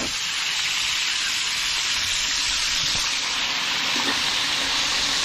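Barracuda steaks frying in hot oil in a wok: a steady sizzle.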